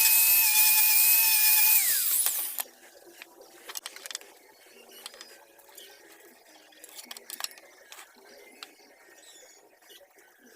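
Small power tool running with a high-pitched whine, then spinning down about two seconds in. After that, faint scattered clicks and knocks of handling.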